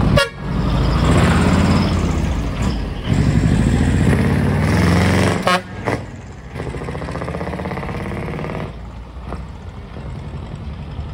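A decorated truck (dekotora) pulling away, sounding its horn in two long blasts of about two and a half seconds each over its engine. A steadier, quieter vehicle engine follows as the next truck drives off.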